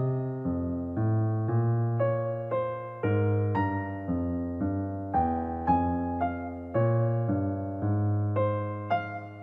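Background piano music: a slow melody of struck notes, about two a second, each fading away, over held low bass notes.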